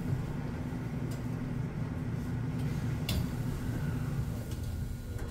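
Seoul subway Line 9 train running, heard from inside the carriage: a steady low rumble, with one sharp click about three seconds in.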